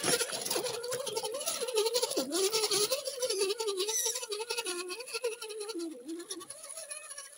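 Carson X-Crawl RC rock crawler's electric motor and gearbox whining, the pitch wavering up and down as the throttle is worked, with rattling and clicking as it climbs over rocks and splashes through water. The whine fades out near the end.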